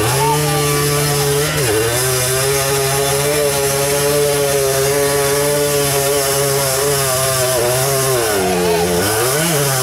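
ATV engine running hard at a steady pitch, dropping briefly under two seconds in, then revving up and down near the end.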